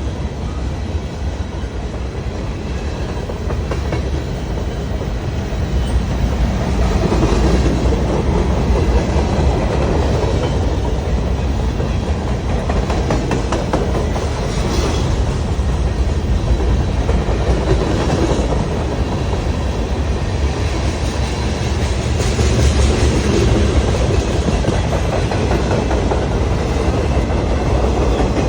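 A train rolling past with its cars rumbling and wheels clacking over the rail joints. The sound is steady and grows somewhat louder about six seconds in.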